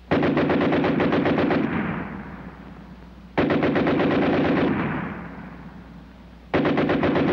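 German machine gun firing three long bursts at a very high rate, each burst a fast burp of shots that rings out in an echoing tail after it stops, over a steady low hum.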